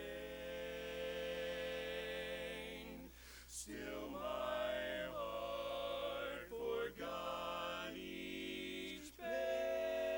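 Male barbershop quartet singing a cappella in close four-part harmony: held chords in phrases broken by short pauses, the last chord held from about nine seconds in.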